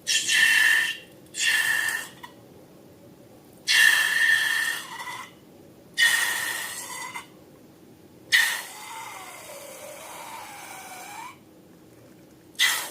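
Air escaping from a balloon's neck in about six short bursts, each a hiss with a squeaky whistle on top. The longest, about eight seconds in, lasts around three seconds, and its pitch wavers and slides as the neck is stretched.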